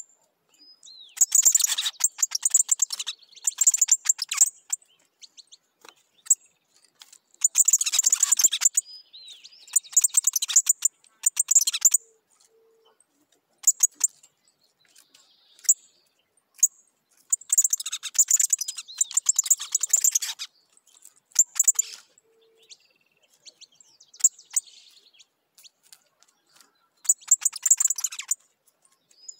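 Picahueso songbird singing repeated phrases of rapid, high, stuttering notes, each phrase lasting one to three seconds with short pauses between.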